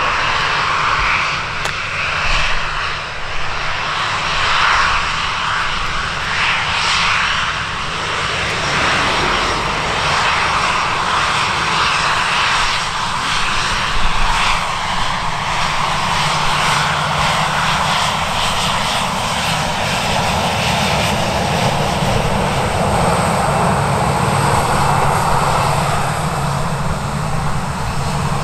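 Airliner engines running loud and steady at close range, with a low hum coming in over the last few seconds.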